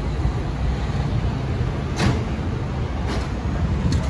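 Steady low rumble of road traffic and engines around a gas-station forecourt. A sharp click comes about two seconds in, and two fainter clicks come near the end.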